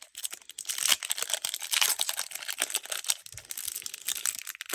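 Foil wrapper of a Pokémon card booster pack crinkling and tearing as it is worked open by hand, in irregular crackly bursts.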